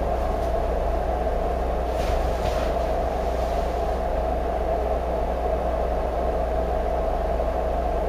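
Steady droning hum with a low buzz under it, unchanging throughout; a faint rustle about two seconds in.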